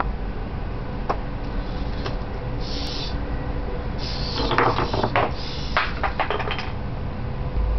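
Hobby servos of a DIY bipedal robot whirring briefly as it shifts its weight, then a dense run of clicks and rattles past the middle as it kicks and small wooden blocks are knocked over and clatter onto the table. A steady low hum runs underneath.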